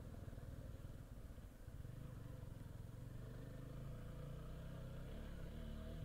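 Motorcycle engine running at low speed, easing off about a second and a half in and then picking up again.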